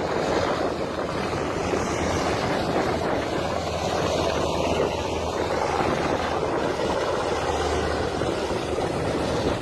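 Steady aircraft engine noise: a continuous, even rushing drone with no distinct knocks or changes.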